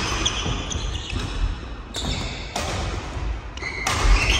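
Badminton doubles rally: rackets hit the shuttlecock and shoes squeak and thud on the wooden court floor, echoing in a large sports hall. There is a heavier thump near the end.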